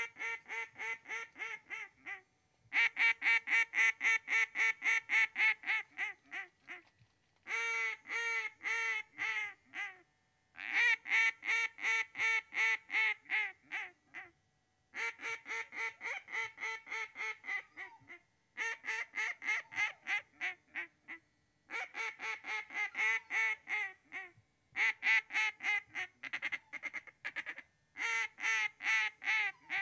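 Ducks quacking in quick runs of about six quacks a second, each run two to three seconds long, with short silent breaks between the runs.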